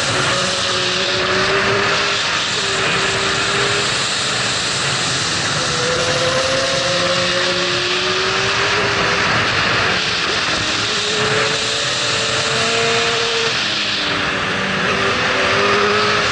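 Yamaha R6 inline-four with a Termignoni full exhaust revving high in long pulls, its note holding and then shifting pitch several times through the gears, under a steady rush of riding wind.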